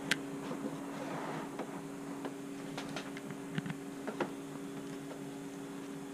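Scattered light clicks and taps of small parts being handled, over a steady hum.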